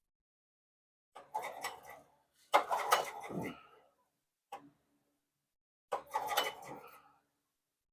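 Recoil pull-starter of a Titan Industrial generator's engine being yanked several times. Each pull gives a sharp rattling whir as the engine spins over briefly and does not fire; one pull ends in a falling hum as the flywheel runs down. The engine has a no-start fault, with the spark plug being checked for spark.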